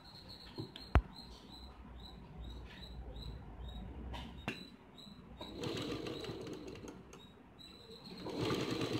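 Domestic sewing machine stitching slowly, with a faint high squeak repeating about twice a second and cloth rustling as the fabric is pulled. A single sharp click about a second in.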